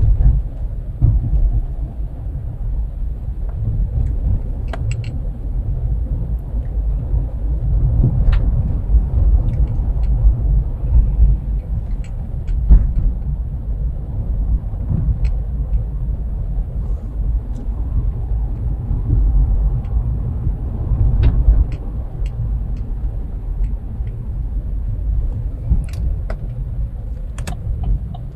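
Steady low rumble of a car driving slowly, heard from inside the cabin, with a few scattered faint clicks.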